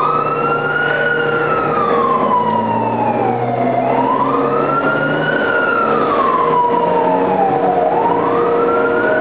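Fire engine siren wailing, its pitch rising quickly and falling slowly in cycles of about four seconds, three times over, with a steady hum and the truck's engine running underneath as it pulls away.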